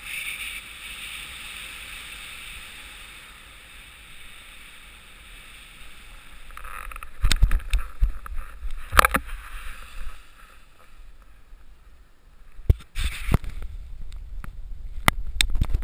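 Air rushing over a paraglider pilot's helmet-mounted camera on final approach, then loud thumps and knocks from about seven seconds in as he touches down and lands on foot on snow and grass, with a few sharp knocks and clicks of gear near the end.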